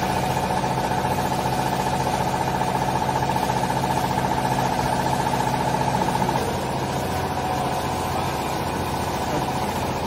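Vertical hydraulic baler's power unit running: an electric motor and hydraulic pump giving a steady hum with a rapidly pulsing whine. About six and a half seconds in the sound changes and gets slightly quieter.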